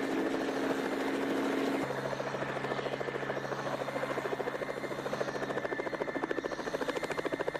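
Light two-bladed helicopter hovering low, its engine and rotor running with a rapid, even rotor beat. The tone changes about two seconds in.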